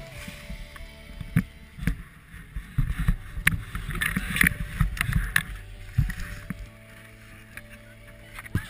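Skis sliding and scraping over packed snow, with wind buffeting a moving camera's microphone and a few sharp knocks.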